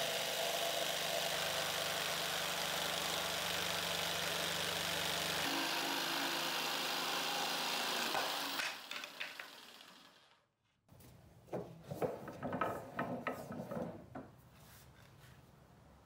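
Jigsaw sawing through plywood, a steady buzz of motor and blade that fades out about nine seconds in. After a short silence, a few seconds of irregular scraping and tapping follow.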